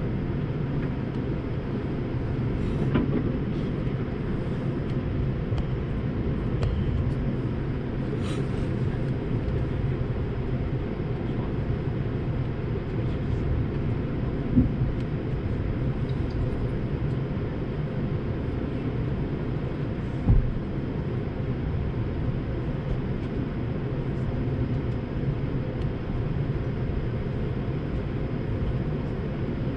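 Cabin noise inside an Airbus A220-300: the steady low rumble of its Pratt & Whitney PW1500G engines and airframe. Two brief thumps come in the middle, about six seconds apart.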